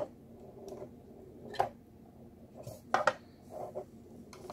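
Sharp clicks and knocks of hard plastic and metal as a 2.5-inch hard drive is popped out of its plastic external enclosure and handled: one at the start, one about a second and a half in, and a quick pair about three seconds in, with soft rubbing between.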